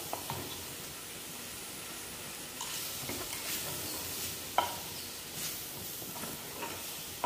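Pumpkin pieces sizzling as they are sautéed in a pan with fried calabresa sausage and seasoning, stirred with a utensil that knocks against the pan a few times, once sharply about four and a half seconds in.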